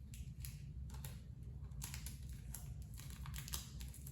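Faint, irregular small clicks and crinkles of hands handling the kite, its straw and tape, over a steady low hum.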